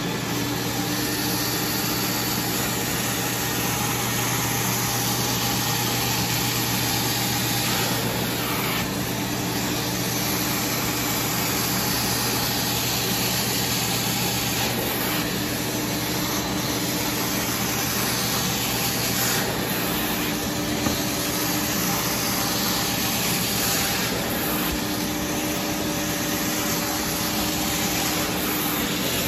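Upholstery extraction machine running steadily: its vacuum motor hums while a clear-headed upholstery wand is drawn across the fabric of a chair. The suction hiss shifts every few seconds as the wand makes its strokes.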